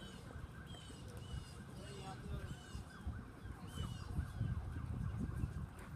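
A bird calling over and over, short high chirps about once a second, over a low outdoor rumble.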